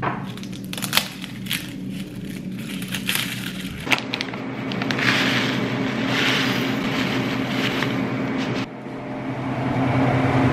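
Kitchen prep sounds. First a run of sharp, papery crackles as a garlic bulb is broken apart into cloves. Then the hiss of dry grains being poured into a glass measuring cup and from the cup into a pot of soup, over a low steady hum.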